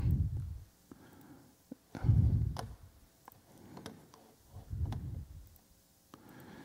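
Faint scattered clicks and low muffled thuds picked up by a lectern microphone, with a short voice sound at the very start.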